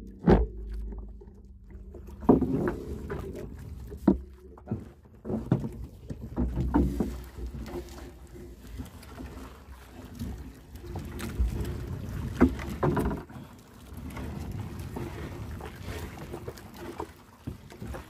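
Gill net being hauled by hand into a small fishing boat: irregular knocks and thuds against the hull and rustling of the net, over a low steady rumble.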